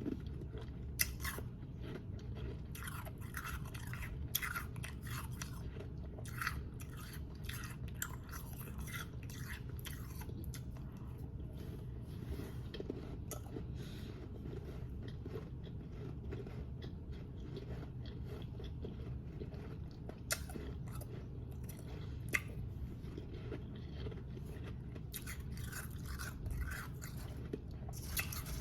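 Close-miked chewing of powdery, snow-like ice, a quick run of soft crackly crunches. The crunches are sparser through the middle and pick up again near the end, over a steady low hum.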